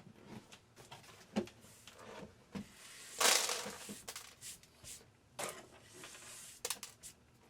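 Scattered small clicks and scrapes of broken miniature light bulb glass being picked up and cleared out, with a louder brief rustling scrape a little over three seconds in.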